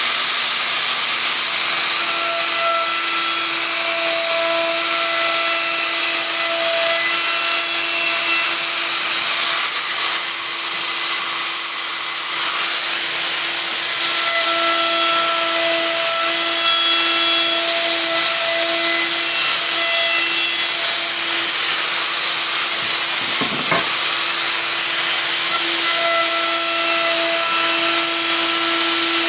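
Festool plunge router with a half-inch roundover bit running at full speed, cutting around the edge of a drawer-handle cutout, with a steady high whine. A shop vacuum runs underneath it, holding the workpiece down on a vacuum box.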